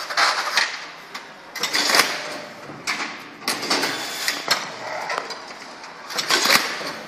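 A series of irregular knocks and clatters over a hissy background, strongest near the start and about six and a half seconds in.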